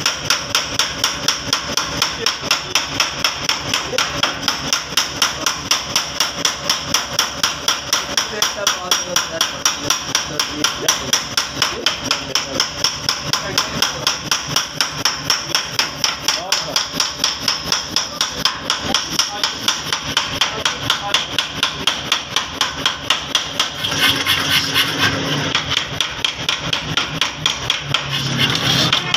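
A 10 kg mechanical power hammer striking a red-hot steel bar in fast, evenly spaced blows, about four a second, as the bar is forged down toward an axle.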